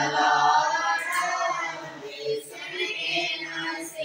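A group of boys singing a worship song together, unaccompanied, with held notes that rise and fall in a continuous sung phrase.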